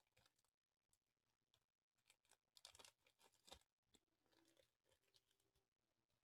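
Near silence, with faint crinkling and rustling of trading-card packaging being handled, mostly about two and a half to three and a half seconds in.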